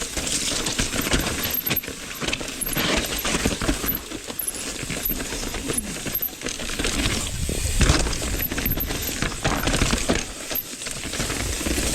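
Mountain bike riding over a rocky trail: tyres on rock and gravel, with the chain and frame rattling in many quick clicks and knocks, and one hard knock about eight seconds in.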